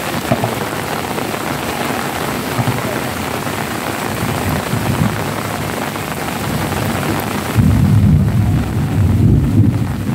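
Heavy rain falling steadily, an even hiss. About three-quarters of the way through, a loud low rumble of thunder sets in and lasts a couple of seconds.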